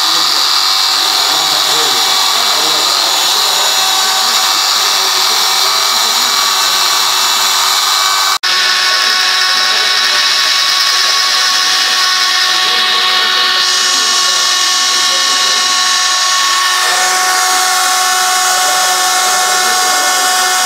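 A 4-axis CNC router running with a steady power-tool whine made of several held tones. It breaks off for an instant about eight seconds in, and its pitch shifts slightly near the end.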